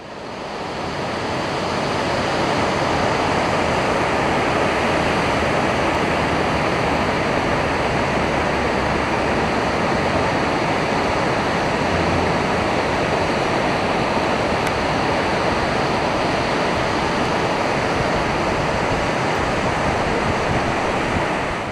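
Water pouring over a lowhead dam spillway into the pool below, a steady loud rushing that fades in over the first couple of seconds.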